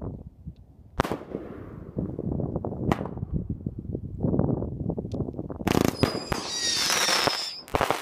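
Red Apple 'Americana Brothers' consumer fireworks firing: sharp reports with dense crackling between them. Near the end comes a louder stretch carrying high whistles.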